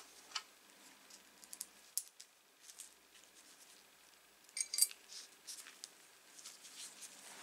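Small metal clicks and clinks as a steel pivot bolt and washers are handled and fitted into the blade halves of a pair of tin snips. The loudest are a quick cluster of clicks about halfway through.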